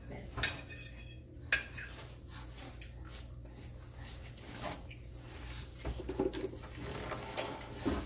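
A metal fork clinking and scraping on a dinner plate during a meal: a few scattered sharp clicks, the loudest about half a second and a second and a half in.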